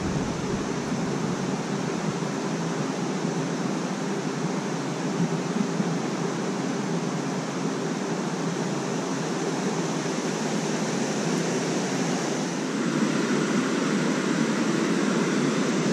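Steady rushing of water through a small river spillway, an even hiss that grows a little louder in the last few seconds.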